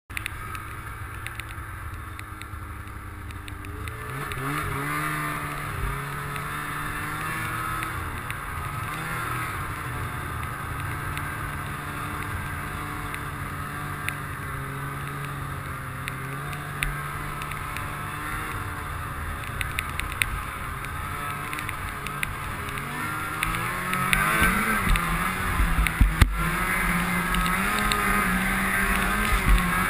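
Arctic Cat snowmobile engine heard from on board the sled. It runs low for the first few seconds, then speeds up about four seconds in and holds a steady cruise with the pitch drifting up and down. Near the end it revs up and down harder and louder.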